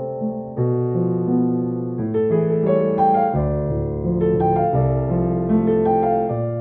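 Background music: a slow piano piece, single notes and chords struck and left ringing.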